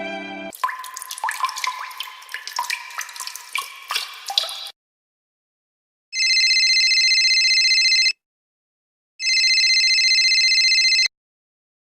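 Stock sound effects: a run of water-drop plinks for about four seconds, then two identical loud electronic trilling tones, each about two seconds long, about a second apart.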